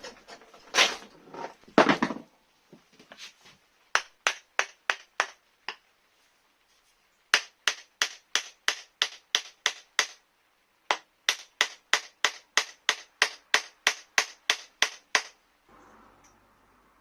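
Sharp hammer taps in three quick runs of about three to four strikes a second, with short pauses between the runs, after a louder scuffling knock at the start.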